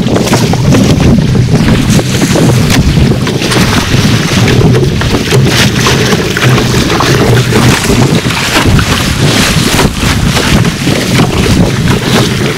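Strong wind buffeting the microphone over water rushing and splashing around a Kahele OC1 outrigger canoe, with irregular sharp splashes from paddle strokes and spray off the outrigger float.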